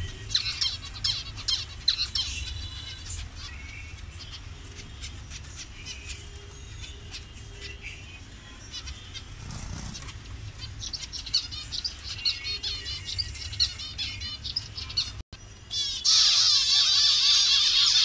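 A colony of zebra finches calling: many short chirps and calls overlapping. About fifteen seconds in there is a brief gap, after which the calling is much louder and denser.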